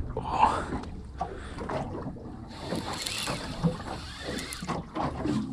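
Small boat sitting on the water: water lapping at the hull, with a steady low hum, scattered knocks and clicks, and a hiss that comes in for a couple of seconds in the middle.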